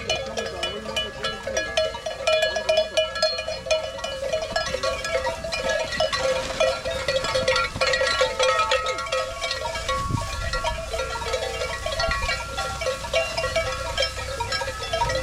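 A flock of livestock bleating, many calls overlapping, with bells ringing among them.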